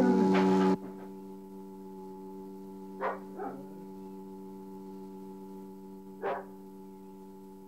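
A steady drone of several held tones, loud at first and dropping abruptly to a quieter level under a second in. Over it a dog barks twice about three seconds in and once more near six seconds.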